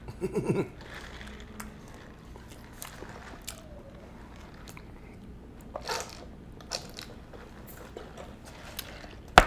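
Close-up eating sounds of a person biting and chewing fried chicken: scattered soft crunches and wet mouth clicks, with a brief hummed voice sound just after the start and a sharp click near the end.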